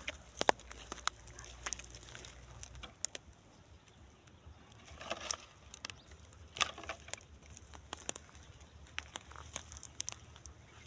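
Dry twigs and leaf litter crackling and rustling in scattered light ticks as a dog moves about over a rabbit on the ground, with denser rustles about five seconds in and again a second and a half later.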